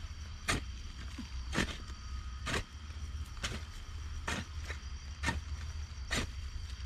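Digging into dirt to bury a fish: a hand tool strikes the ground in sharp, regular blows about once a second.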